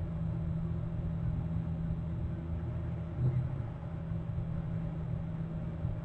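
A steady low rumble, with a brief louder swell about three seconds in.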